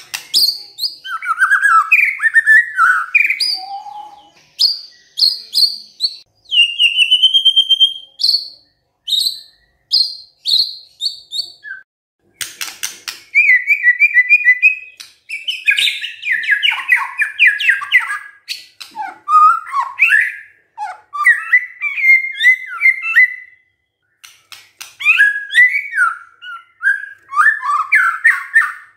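White-rumped shama (murai batu) singing a loud, varied song of rich whistled phrases separated by short pauses, with a burst of rapid clicking notes about twelve seconds in.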